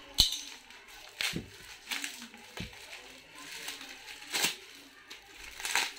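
Plastic wrapping being pulled and crumpled off a cricket bat's handle: uneven crinkling and crackling with sharp rustles, the loudest just after the start.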